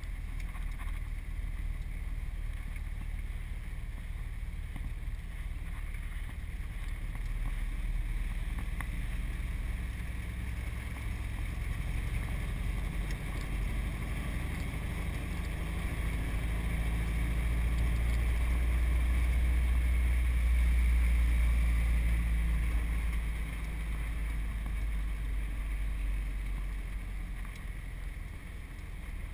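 A 1929 Ford Model A coupe's four-cylinder engine with twin Stromberg carburettors runs steadily under way, heard from inside the cabin along with road and wind noise. It grows louder a little past the middle, then eases off again.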